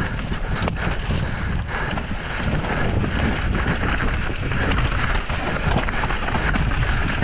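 Mountain bike riding fast down a rocky dirt trail, with wind buffeting the microphone, the knobby tyres crunching over dirt and stones, and frequent knocks and rattles from the bike over bumps.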